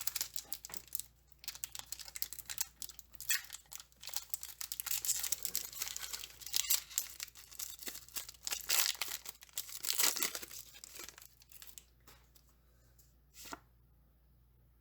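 Foil wrapper of a Pokémon card booster pack being torn open and crinkled: a dense run of tearing and rustling that dies down about twelve seconds in, followed by a couple of brief rustles.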